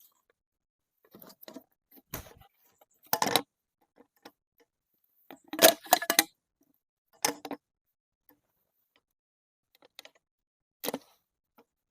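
Sporadic short clinks, knocks and rustles of small objects being handled, in about half a dozen separate bursts with silence between; the loudest cluster comes about halfway through.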